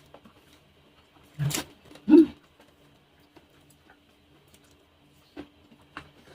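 Close-miked eating sounds from someone eating fried sweet potato: two short bites or chews, about a second and a half and two seconds in, then a few faint mouth clicks, over a steady low hum.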